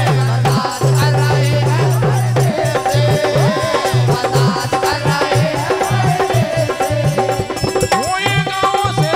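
Live bhajan music: a sung, gliding melody over a steady drum beat and jingling hand percussion.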